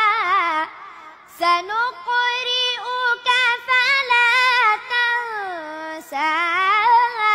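A boy reciting the Quran in a high, melodic tajweed style, holding long ornamented notes that waver in pitch. He pauses for breath about a second in and again near six seconds, and one long note slides down just before the second pause.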